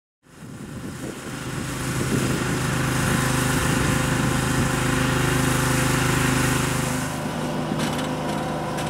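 An engine running steadily. It fades in at the start and eases a little about seven seconds in.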